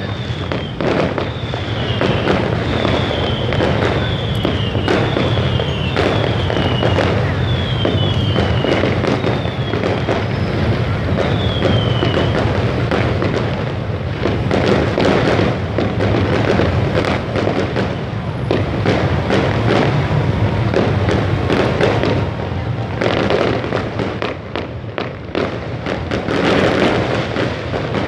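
Fireworks and firecrackers going off continuously: dense crackling and popping over a steady background din of the crowded street. A high whistle falls in pitch again and again, about once a second, through the first twelve seconds or so.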